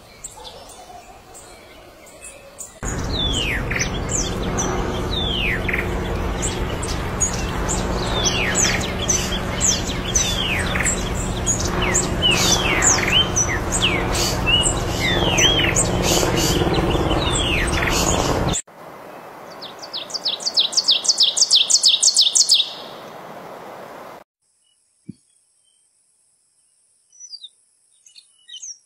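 Wild songbirds calling, in several cut-together takes: many quick downward-sliding chirps over a loud hissing background, then a rapid string of high repeated notes, about six a second, then a few faint chirps in near silence.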